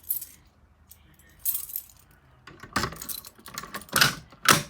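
Small metal pieces jangling and clinking in irregular bursts, the loudest near the end.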